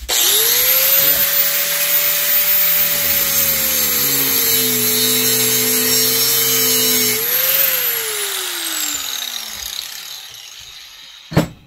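Angle grinder with a thin cut-off wheel starting up and running at full speed with a high whine and grinding hiss, its pitch sagging slightly under load as it cuts into a washer/dryer stator's steel core. About seven seconds in it is switched off and winds down with a falling whine. A single short knock comes near the end.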